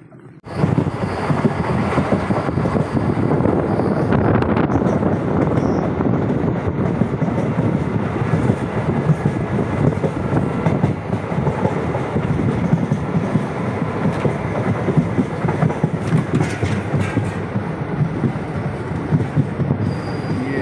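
Passenger train running at speed, heard from inside the coach: a loud, steady rumble of wheels on the track that starts abruptly about half a second in.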